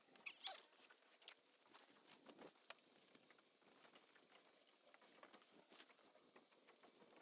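Near silence with faint rustling and scattered light clicks: a nylon gillnet being lifted, shaken and handled on wooden dock boards.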